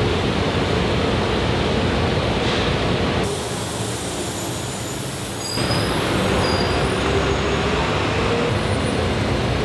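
Dense, steady rumbling noise with a few thin high squeals. It changes character abruptly about three seconds in and changes back a little before six seconds.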